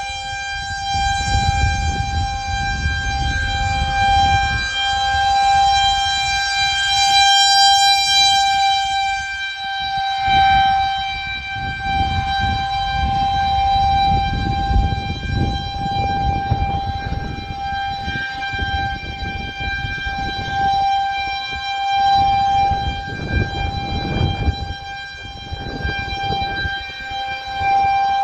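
Federal Signal 2001-130 rotating electromechanical outdoor warning siren sounding a steady single tone for a tornado warning, growing louder and fainter as its horn turns toward and away, with a low rumble underneath.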